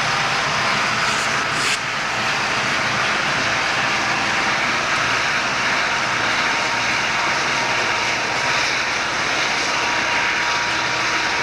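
Diesel-electric freight locomotives running steadily as the train rolls slowly by at low speed.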